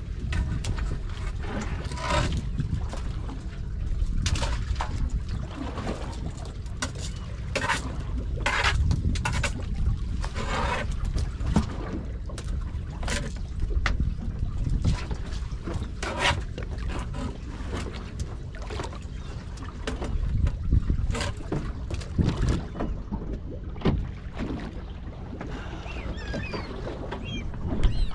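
Low rumble of wind and water around a small fishing boat drifting at sea, with scattered short knocks and clicks of gear handled on deck.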